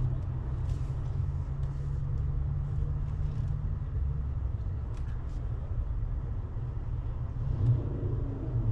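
Steady low rumble inside the cabin of a GWM Haval H6 plug-in hybrid SUV creeping slowly while being reversed into a parking space, with a few faint clicks.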